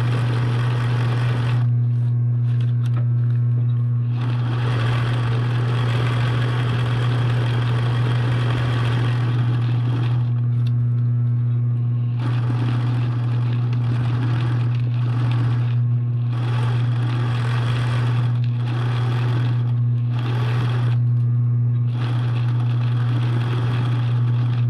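Steady low machine hum with a rushing noise over it that drops out briefly several times.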